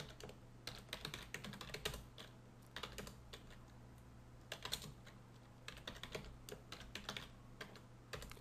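Computer keyboard typing in quick bursts of keystrokes, with a pause of about a second midway. A faint steady low hum runs underneath.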